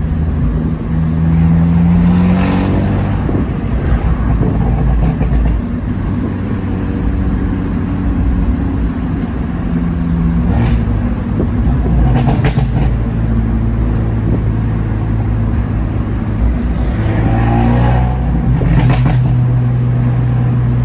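Abarth 124 Spider's 1.4-litre turbo four-cylinder through a Monza exhaust with its valves wired open and a 200-cell sports cat, heard from the open cockpit as the car drives along. The engine pulls and eases off a few times, with a downshift from third to second, and a few brief cracks from the exhaust.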